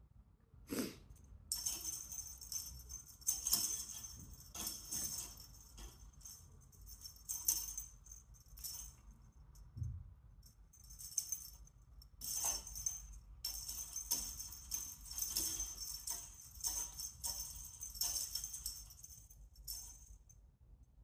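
A dangling worm cat toy jingling in irregular bursts as a cat bats and bites at it, with a short soft thump about ten seconds in.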